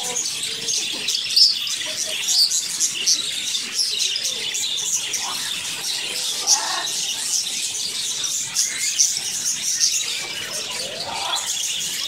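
A flock of budgerigars chattering and chirping non-stop, a dense mix of quick high tweets and warbles.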